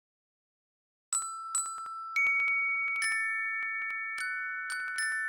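Bell-like chime tones struck one after another, about seven strikes, each note ringing on so that they stack into a sustained chord. The sound begins about a second in and cuts off suddenly at the end.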